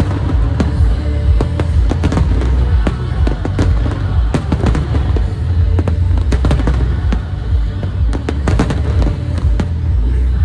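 Aerial fireworks going off in quick, irregular bangs and crackles, over loud music with heavy bass playing through the show's loudspeakers.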